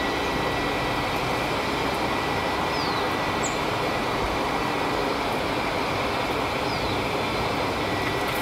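Steady, even rushing background noise with a thin, faint high tone running through it, and three short, faint downward bird chirps spread through it.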